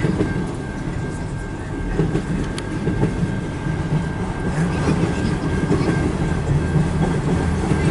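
Freight train of autorack cars rolling past: a steady rumble with the clickety-clack of wheels over rail joints.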